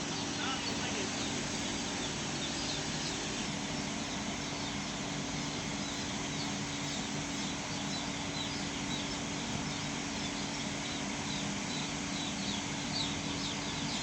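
A poultry house full of chickens peeping and calling all at once: a dense, steady chorus of many short high chirps over a constant low hum.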